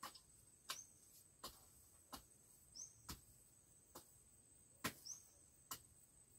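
Hoe chopping into garden soil: short dull strikes at an uneven pace, roughly one every three-quarters of a second, breaking the soil into small clumps. A steady high insect drone runs underneath.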